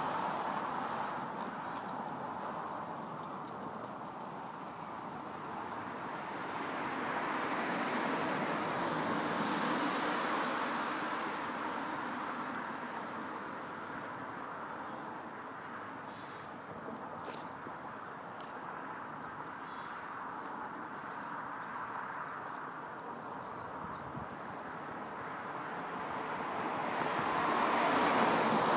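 Road traffic: the tyre and engine noise of passing vehicles swells and fades, one fading away at the start, another passing about a third of the way in, and a third approaching near the end. A faint steady insect chirring lies underneath.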